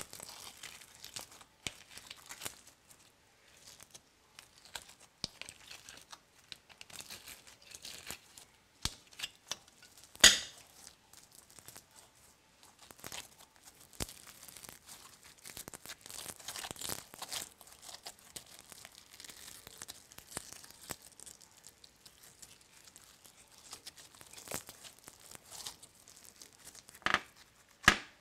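Hands squeezing, stretching and folding glossy slime mixed with foam beads: sticky, crackly tearing and crinkling that comes and goes, with a sharp louder crack about ten seconds in and a couple more near the end.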